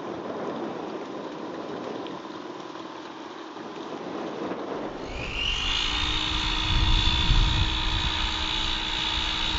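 Model Catalina flying boat's propeller motors running: about five seconds in a high whine rises in pitch and then holds steady, over a lower hum and a low rumble. Before that, a quieter wash of noise with a faint steady whine from a model pusher tug pushing a buoy.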